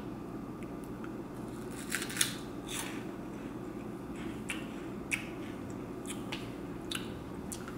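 Chewing a crunchy white cheddar puff snack, with short, irregular soft crunches over a low steady hum.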